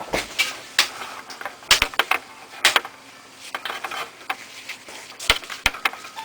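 Hand reassembly of a Toshiba A300 laptop: irregular clicks, taps and knocks of plastic casing covers and small parts being fitted, a few of them sharp and loud.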